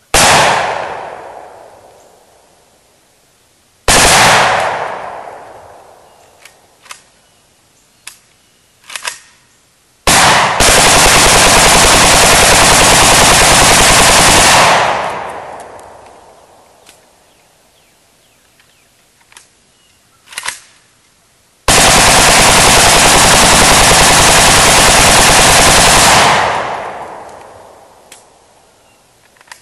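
AKS-74U carbine firing 5.45×39 mm on full auto: two short reports near the start and about four seconds in, then two long unbroken bursts of several seconds each, about halfway through and again near the end. Each burst has a long echoing tail, and a few faint clicks fall between the bursts.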